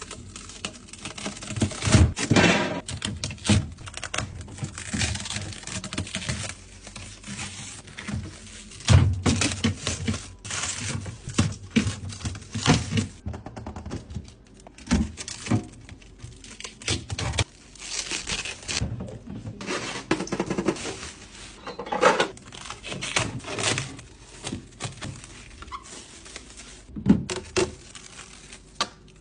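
Items being handled and set into a new refrigerator: irregular thunks and knocks of containers placed on shelves, with plastic packaging tearing and crinkling.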